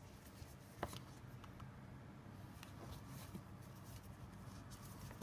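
Quiet handling of a fabric card holder with cards inside: soft rubbing and scratching as it is turned in the fingers, with a sharp click about a second in.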